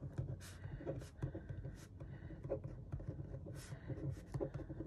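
Ballpoint pen writing on a sheet of paper: a quick run of short, irregular scratching strokes as words are written out.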